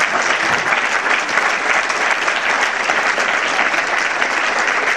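Theatre audience applauding steadily with thick, even clapping, the applause that greets the end of a sketch.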